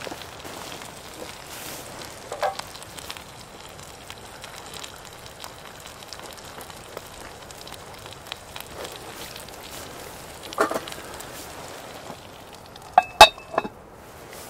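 Sausages and eggs sizzling steadily in a cast iron pan over a wood fire, with a few light clinks. About a second before the end, the cast iron lid clanks down onto the pan a few times and rings briefly.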